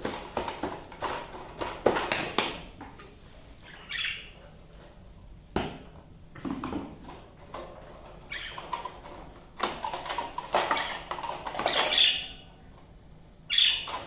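A wire budgie cage rattling and clattering in quick clusters as it is tilted and handled, with a few short budgie chirps.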